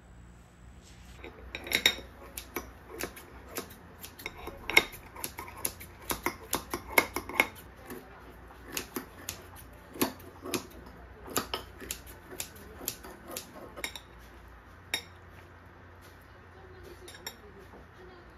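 Kitchen scissors cutting through a crisp baked tortilla pizza on a ceramic plate, with blades and plate clicking and clinking. It is a dense, irregular run of sharp clicks and crunches that thins to a few near the end.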